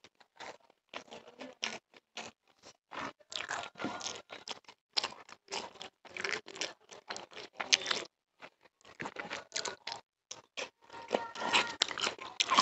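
Close-miked chewing of rice and chicken, with wet mouth clicks and smacks coming in quick, irregular succession and a short pause about eight seconds in.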